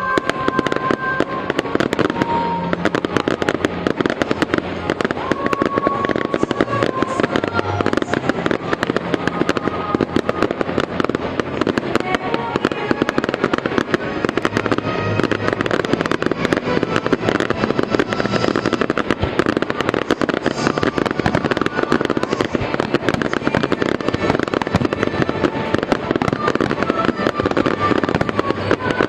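Fireworks crackling and popping in a dense, continuous stream, with music playing underneath.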